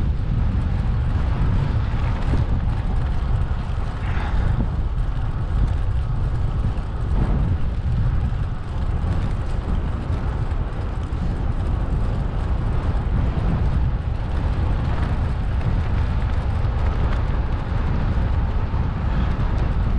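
Steady low rumble of wind buffeting the microphone while riding, with a few brief swells about four and seven seconds in.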